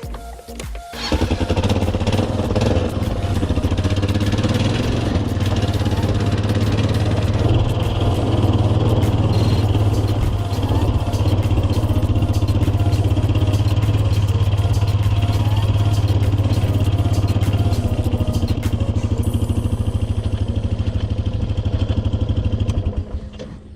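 A vehicle engine running close by, a steady low pulsing drone that starts about a second in and dies away near the end.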